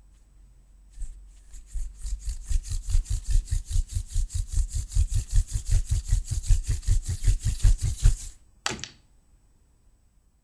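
A thin wooden stick twirled back and forth between the palms, spinning a paper figure. It makes a rhythmic rubbing of about five strokes a second that starts about a second in and stops after about seven seconds, followed by a single short sharp sound.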